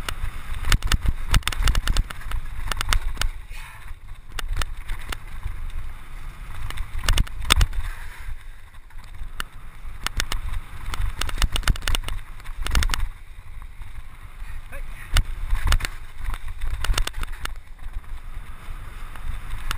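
29-inch Scott Scale hardtail mountain bike riding fast downhill on a rough dirt trail: wind rumbling on the microphone, with frequent rattling clicks and knocks from the bike as it bounces over the ground.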